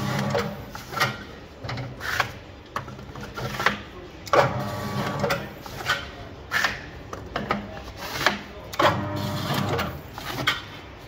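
A motorised core cutter working on cardboard label-roll cores: a mechanical whir comes and goes in stretches of about a second, among repeated sharp knocks and scrapes of the cardboard cores being handled and cut on the spindle.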